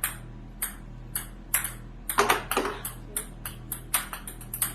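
Ping pong balls bouncing: about twenty light, sharp clicks at uneven spacing, coming faster and closer together from about two seconds in.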